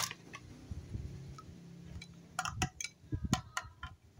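Light clicks and knocks of a plastic toy magnetic fishing rod and hard plastic toy fish: one sharp knock at the start, then a run of uneven clicks about three a second in the second half, over a faint low hum.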